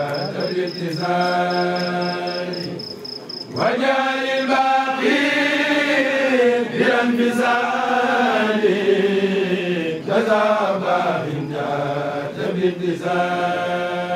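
A kourel, a group of men, chanting a khassida together in long, drawn-out gliding lines. A high pulsing tone sounds underneath for the first three and a half seconds, then stops.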